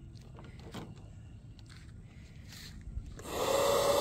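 Toy bubble gun's electric motor and fan whirring for about a second near the end, a loud steady whir with a held hum. Before it, only faint scattered clicks.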